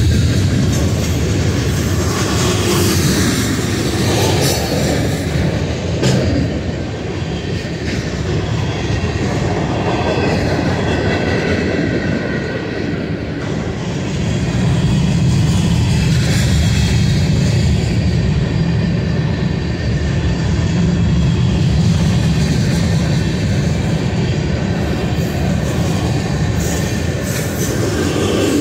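Freight cars of a Union Pacific manifest train rolling steadily past, steel wheels running on the rails in a continuous rumble that grows a little louder about halfway through.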